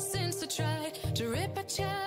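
Background pop music with a steady beat and a gliding melody line.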